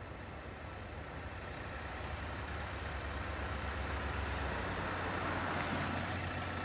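Car engine running and tyres rolling on the street as a Hyundai saloon drives slowly up and pulls in, growing louder over the first five seconds.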